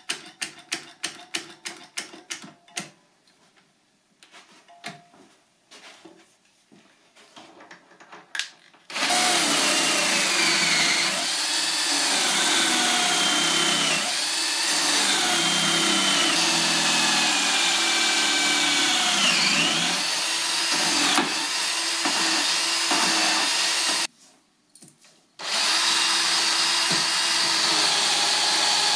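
A one-handed bar clamp's trigger clicking as it is squeezed tight, about four clicks a second for the first few seconds. Then, about nine seconds in, a power drill starts boring a 20 mm hole through the solid wood workbench top, its whine dipping in pitch as the bit bites. It stops briefly about 24 seconds in, then runs on.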